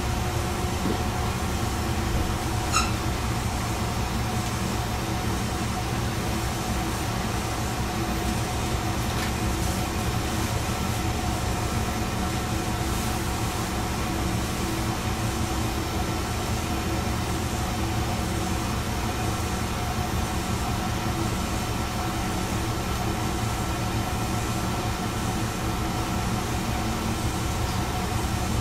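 Diesel railcar heard from inside, its engine running with a steady low rumble and a constant hum that keeps the same pitch throughout. A short high squeak sounds about three seconds in.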